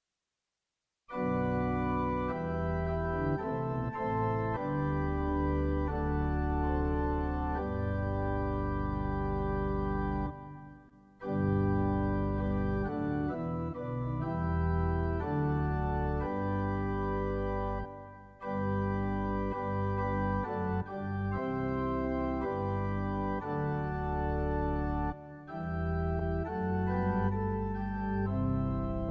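Organ playing slow, held chords, starting about a second in. The music pauses briefly between phrases three times.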